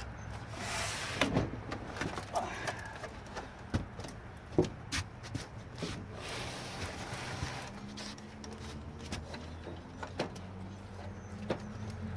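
Scattered clicks, taps and short scrapes of hands working at the plastic parts and wiring inside an old CRT television, prying at pieces that are glued in. A low steady hum runs underneath.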